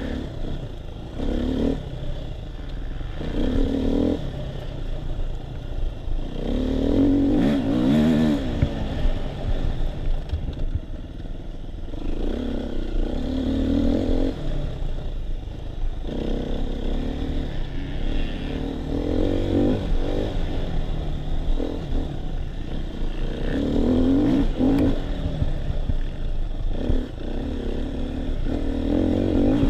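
Enduro dirt bike engine heard from on board while riding a rough trail, revving up and dropping back over and over as the rider accelerates and eases off, over a steady low rumble.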